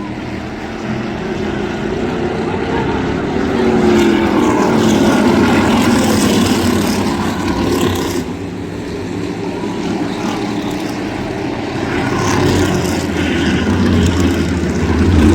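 Crate-modified race cars' V8 engines running at speed around a short oval, loud and continuous, with engine notes dropping in pitch as cars pass.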